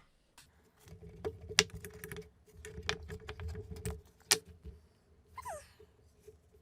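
Zip tie tails being snipped off with cutters, with small plastic clicks and rustling from handling the bundled cables. The two loudest snaps come about a second and a half in and just past four seconds, and a brief falling squeak follows near the end.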